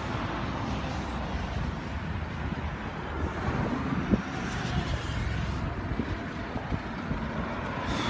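Road traffic: cars and vans driving past on a main road, a steady rush of engines and tyres.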